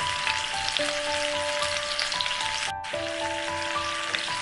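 Steady crackling sizzle of food frying, with a short break about two-thirds of the way in, over soft background music of slow held notes.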